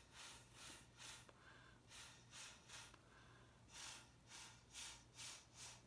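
Short puffs of breath blown through a drinking straw onto wet fluid acrylic paint to push it across the canvas, about a dozen faint puffs in three quick runs.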